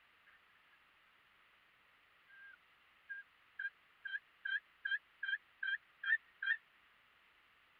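Turkey yelping: a single drawn-out note, then a run of about nine short yelps, roughly two and a half a second, growing louder toward the end.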